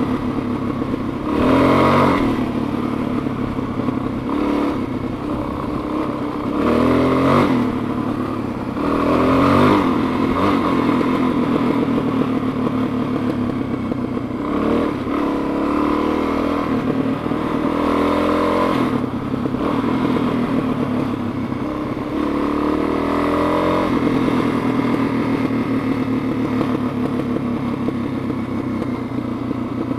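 Dirt bike engine running under way on a loose trail, its pitch rising and falling again and again as the throttle is opened and closed.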